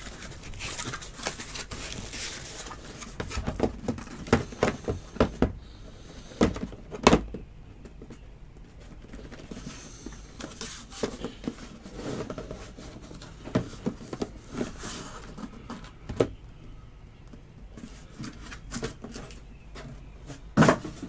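A cardboard case of trading-card boxes being opened and handled: irregular knocks and thuds with rustling and scraping of cardboard, the sharpest knocks about seven seconds in and near the end.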